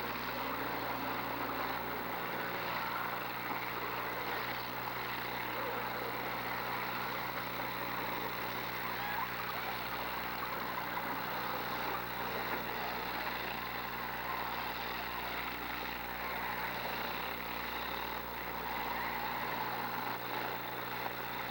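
Engines of several demolition derby cars running as they move around the arena, blending into a steady, even din with no single crash standing out.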